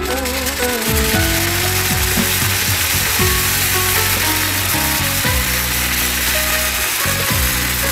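Water spinach sizzling in oil in a hot wok as it starts to stir-fry: a loud, steady hiss.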